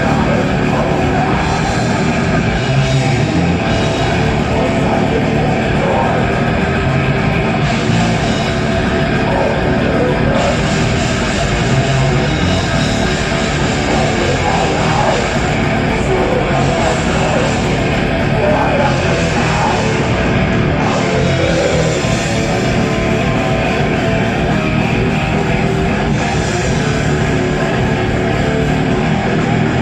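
Heavy metal band playing live, with loud electric guitars carrying the song without a pause.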